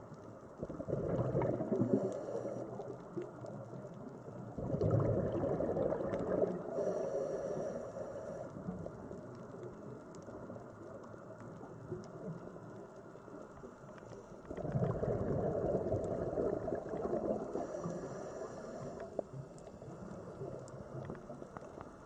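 Underwater bubbling that swells up three times, about a second in, about five seconds in and about fifteen seconds in, each lasting a few seconds, over a quieter steady underwater rush.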